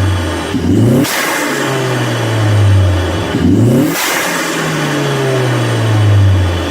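2015 Mustang EcoBoost's turbocharged 2.3-litre four-cylinder, breathing through a Roush cold air intake, revved twice: each time the revs climb quickly, cut off with a short rush of air as the throttle closes, then fall slowly back toward idle.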